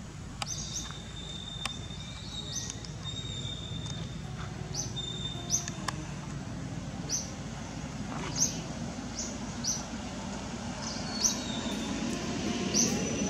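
Birds chirping in the background: short, sharp, high-pitched chirps at irregular intervals, roughly one a second, with a thin held high whistle in the first few seconds. Under them runs a steady low background rumble.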